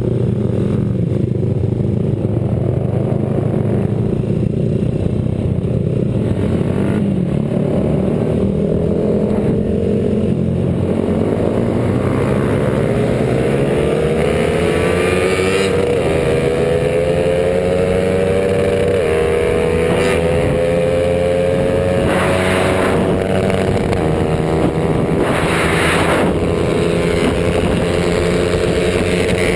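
Small motorcycle engine heard from a camera on the bike itself, running hard under load with wind and road rush. From about ten seconds in, the engine note climbs steadily as the bike accelerates, with short breaks in the note around the middle.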